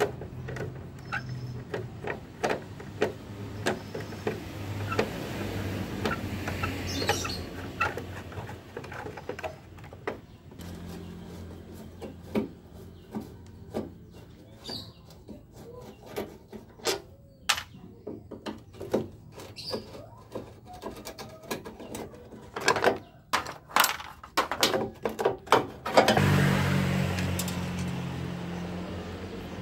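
Screwdriver clicking and scraping on screws and plastic lamp trim as the lamps and surrounds are unscrewed, with many short irregular clicks and taps over a low steady hum.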